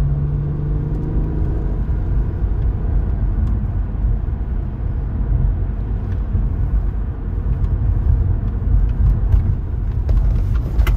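Subaru Legacy Outback's flat-six engine and tyres on the road while driving: a steady low rumble. A steady engine tone is heard over it for the first second or so, then sinks into the rumble.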